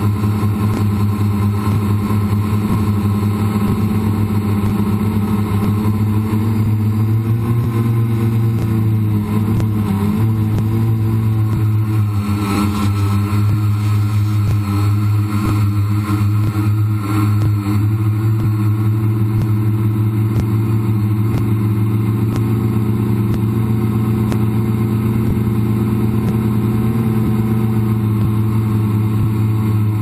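Quadcopter's electric motors and propellers buzzing steadily, heard close up from the camera mounted on the craft, the pitch shifting a little as the throttle changes about a third of the way in.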